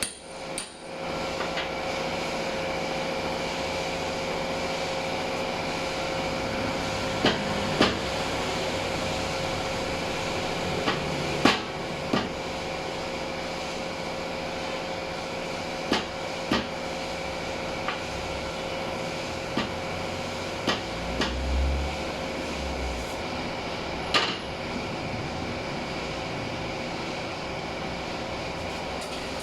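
Metal transmission parts knocking and clinking about a dozen times at irregular intervals during assembly, over a steady machine hum with a constant tone.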